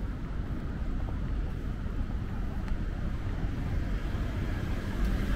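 Steady city street noise with a low rumble of traffic and some wind buffeting the microphone.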